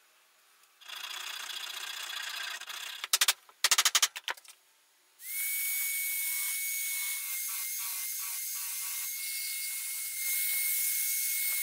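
Electric hand drill with a small drum bit spinning up about five seconds in and running steadily with a constant whine as it works the end of a hardwood saw handle. Before it, a stretch of rubbing and a few sharp clicks.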